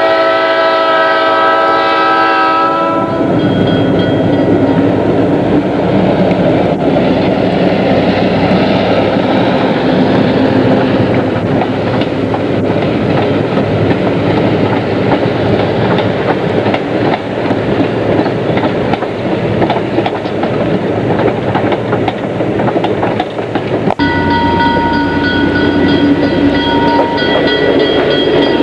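A diesel locomotive horn sounds a chord and cuts off about three seconds in. Then comes a long stretch of dense noise, rain and the passing train heard from inside a car. About 24 seconds in the horn sounds again, steadily, over the low rumble of the locomotive.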